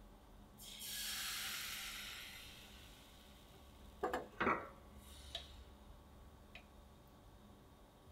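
Crepe batter hits a hot ceramic-coated frying pan with a soft sizzle for a second or two. About four seconds in come two sharp metal clinks, where the pan is lifted off the gas stove's grate to swirl the batter, followed by a few faint ticks.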